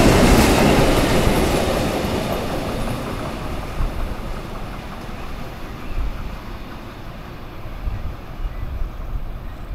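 A mixed freight train's wagons rumbling over the rails as its last vehicle, a yellow track maintenance machine, passes close by and then moves away, the sound fading steadily.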